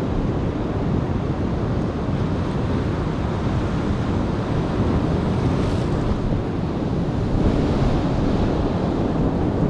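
Ocean surf breaking against rocks, a steady heavy wash, with wind buffeting the microphone.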